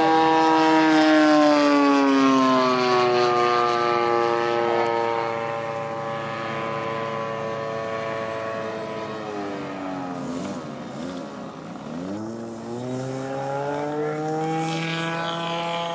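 Model airplane engine running on the ground, its pitch easing down over the first few seconds and then holding steady. Around ten seconds in it is throttled down to a low idle and opened back up, as the engine is being tuned.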